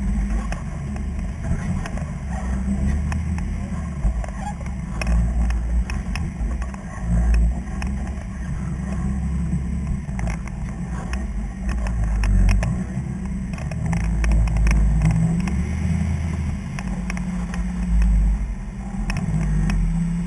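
Off-road vehicle's engine running at low speed over rough ground, its low rumble swelling and easing several times, with scattered sharp knocks and clatters throughout.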